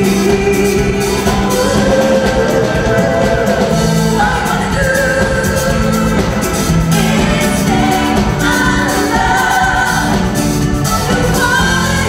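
Live band playing a pop song, with women singing the lead into microphones over drums, bass guitar and keyboards, and backing singers behind them.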